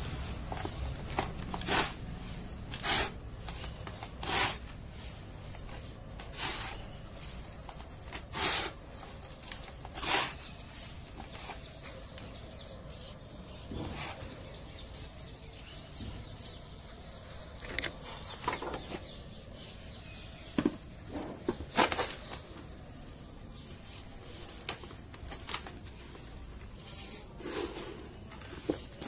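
Hands crumbling clumps of dry, dusty sand and brushing through loose sand, giving short crunching rustles at irregular intervals.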